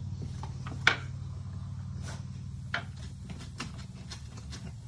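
Light scattered taps and clicks of paint brushes dabbing and knocking on plastic paint palettes and a tabletop, the sharpest about a second in, over a steady low hum that slowly fades.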